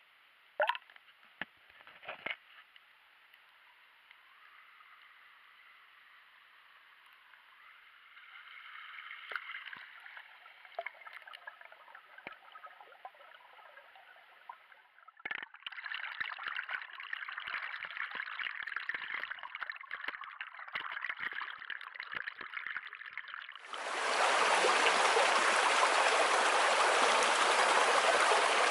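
Mountain stream heard through a waterproof action camera held underwater: faint, muffled bubbling and gurgling with scattered clicks, a couple of sharp knocks near the start, and louder from about halfway. Near the end it switches to the stream flowing over stones in open air, much louder and fuller.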